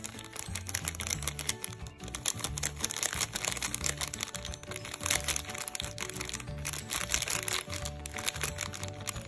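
Background music with a repeating bass line, over the crinkling of a plastic seasoning sachet as powder is squeezed and shaken out of it onto noodles.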